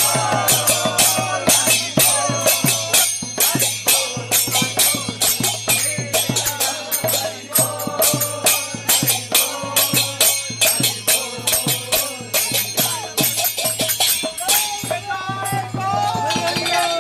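Devotional kirtan music: voices singing a Vaishnava chant over hand cymbals struck at a steady, quick beat of about four strokes a second.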